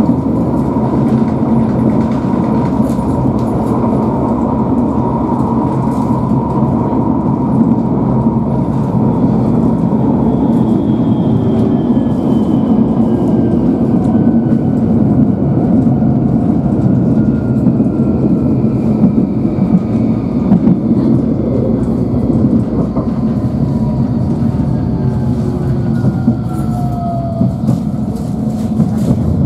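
Interior of a light-rail tram running along the track: steady wheel-and-rail rumble with an occasional click over the rails. Faint motor whines sweep slowly downward in pitch through the second half.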